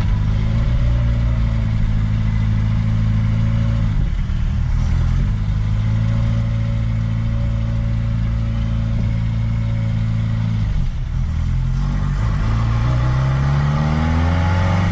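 Reliant Regal three-wheeler's small four-cylinder engine running on the road. Its note breaks and drops at gear changes about four and eleven seconds in, then climbs steadily as the car accelerates near the end.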